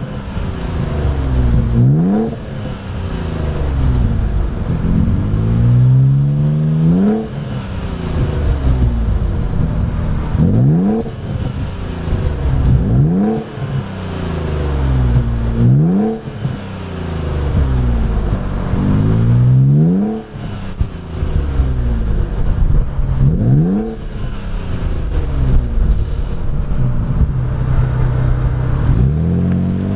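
Ford Bronco Raptor's twin-turbo V6 through an AWE SwitchPath 3-inch catback exhaust with an X-pipe and no resonators, revved again and again. About a dozen quick rises in pitch, two to three seconds apart, each falling back toward idle.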